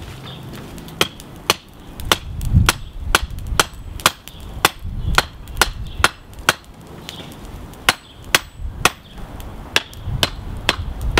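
Steel hammer striking a hot high-carbon railroad spike on an anvil, sharp ringing blows about two a second, drawing the spike out flat.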